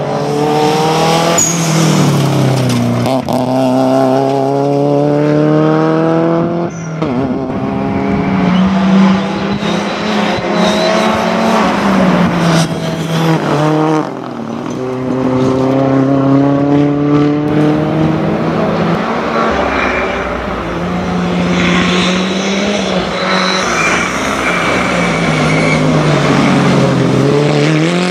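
Rally cars driven flat out in turn, a Subaru Impreza and then Ford Fiestas. Each engine note climbs through the gears and drops sharply on lift-off and downshifts for corners.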